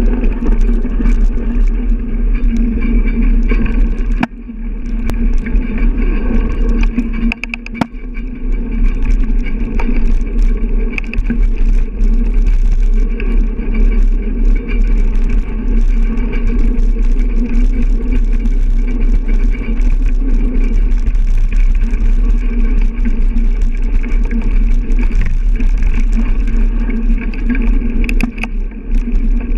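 Bicycle rolling over packed snow, picked up by a handlebar-mounted camera: a steady, loud rumble of tyres and the bike's vibration, easing briefly about four seconds in and again near eight seconds, with a few clicks.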